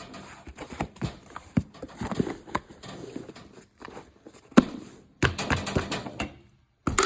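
Crinkle packing paper rustling and crackling as it is pressed into a cardboard box, with scattered taps and a sharper knock about four and a half seconds in.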